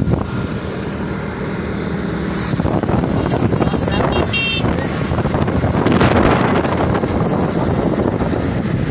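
Wind buffeting the microphone on a moving motorcycle, over the motorcycle's engine and the surrounding road traffic.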